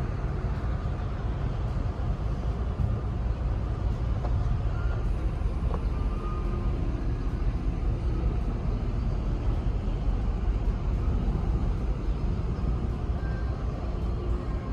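Steady low rumbling noise with an uneven, jittery loudness.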